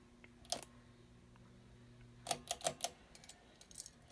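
Emerson Northwind ceiling fan motor starting up with a low steady hum for about two seconds, then a quick run of light clicks and a few fainter ticks.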